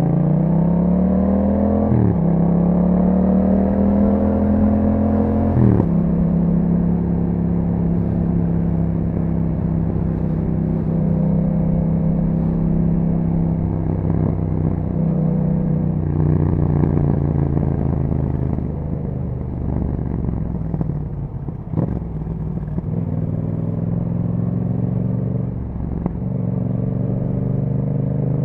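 A 2021 Yamaha MT-07's 689 cc parallel-twin engine running through an Akrapovic exhaust under riding load. It rises in pitch through two quick upshifts in the first six seconds, then holds fairly steady revs, with two brief breaks in the last third.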